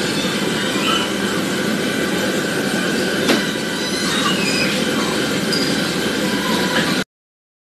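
Steady loud din of an indoor play area, with a few brief high shrieks and squeals from children over it; it cuts off suddenly near the end.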